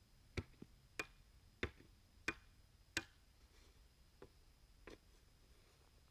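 A run of sharp knocks: five evenly spaced, about two-thirds of a second apart, then two fainter ones.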